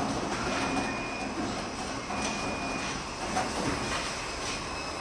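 Automatic pillowcase sewing machine running: a steady mechanical clatter with a few sharp clacks and a thin high whine that comes and goes.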